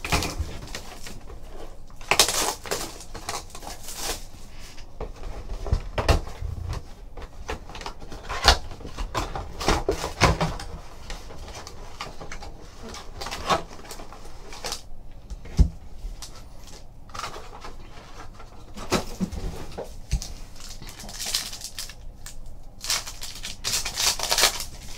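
Crinkling and rustling of a 2013-14 Panini Titanium basketball hobby box being opened by hand: its wrap and cardboard flaps handled and the foil card packs pulled out, in irregular crackly bursts. Near the end a foil pack is torn open.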